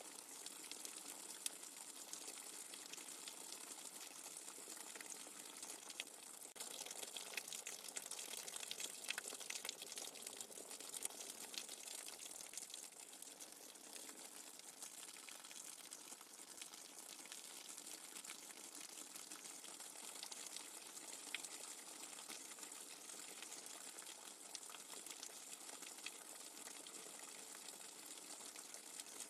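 Steady rain, a dense patter of fine drops. It gets a little heavier from about seven to twelve seconds in.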